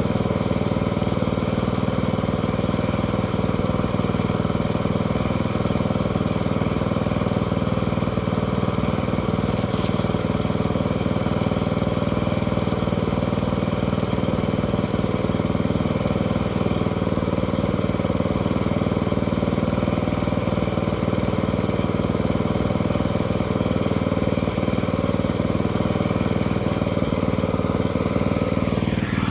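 An engine running steadily at an even speed, with a short sound falling in pitch right at the end.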